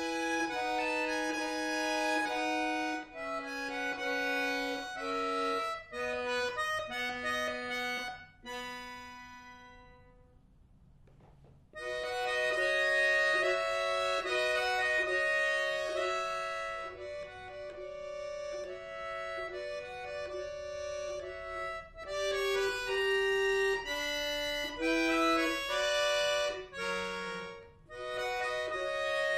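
Chromatic button accordion played solo, a classical piece in stepping melodic notes over sustained reed tones. About eight seconds in the phrase dies away to a near-silent pause, and the playing comes back in full about a second and a half later.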